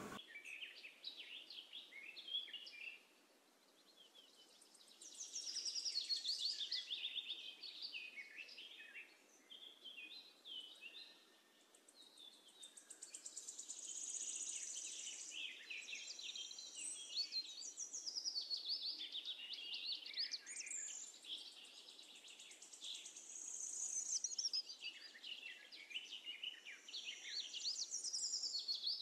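Faint chirping and twittering of small birds in quick, high runs of sliding notes, coming and going with short lulls.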